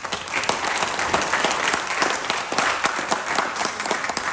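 An audience applauding: many people clapping steadily after a speech ends.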